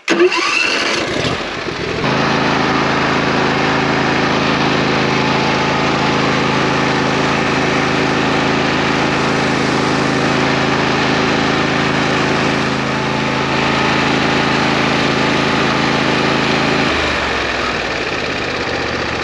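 Small engine of a DR XL Pro walk-behind power unit, with a DR wood chipper attachment on its PTO, starting and revving up. About two seconds in it settles into steady running at full speed. About seventeen seconds in it drops to a lower, quieter running.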